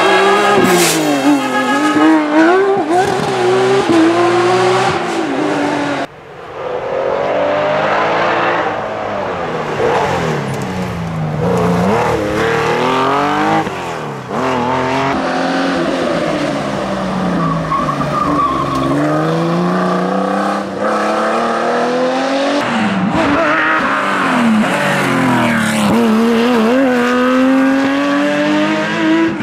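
Porsche 911 rally cars' flat-six engines, a modern 997 GT3 and classic 911s one after another, revving hard up through the gears and dropping on lift-off and downshifts. The pitch climbs and falls again and again.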